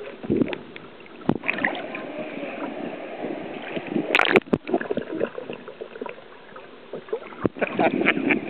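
Sea water sloshing and gurgling, heard muffled from under the surface, with scattered small clicks. About four seconds in comes a sharp crackling splash, and near the end the water is louder and busier with splashing at the surface.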